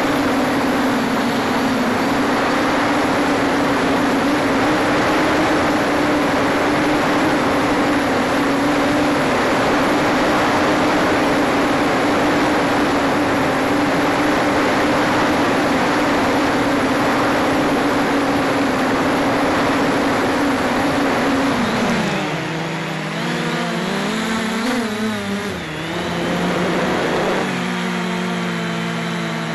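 MJX Bugs 2 quadcopter's brushless motors and propellers, heard through its onboard camera: a steady hum over a haze of air noise. About two-thirds of the way through, the pitch drops and the motor tones split and wander up and down as the motor speeds change.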